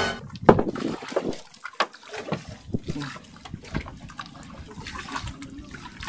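Seawater splashing and dripping around a small outrigger fishing boat, with scattered sharp ticks and knocks at irregular intervals.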